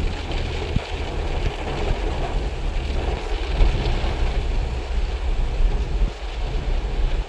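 Car cabin noise while driving in heavy rain: a steady low rumble of the car and its tyres on the wet road, with the hiss of rain on the roof and windscreen.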